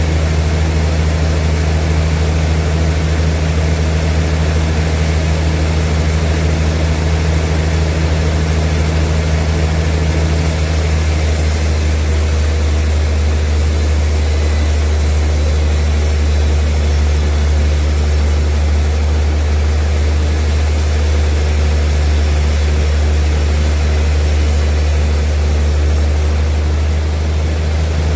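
Large sawmill machinery running with a steady, loud, low drone. A brighter hiss joins about ten seconds in and fades near the end.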